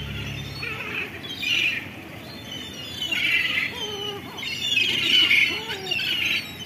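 A flock of gulls, lesser black-backed gulls among them, calling with harsh squawking cries in several bursts a second or two apart. A bit of background music fades out in the first second.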